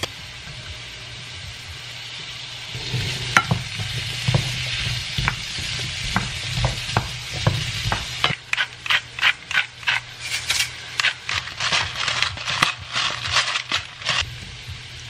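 Diced potatoes and bacon sizzling in a stainless steel frying pan while being stirred. In the second half there is a run of quick rasping strokes, about three a second.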